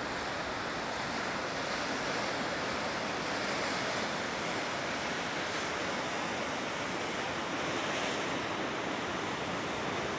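Sea of Japan surf breaking on the shore with strong wind, a steady rushing noise.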